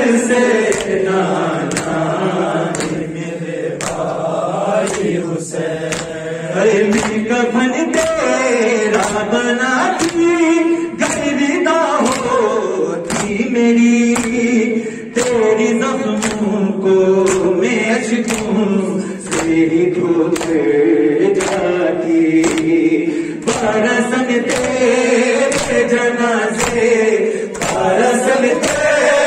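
Urdu noha chanted by a male reciter over a microphone, with a group of men singing along, set to a steady beat of hands slapping chests in matam.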